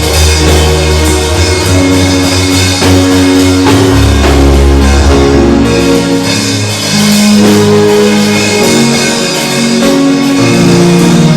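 Live worship band playing an instrumental passage: sustained keyboard or guitar chords over bass and drums.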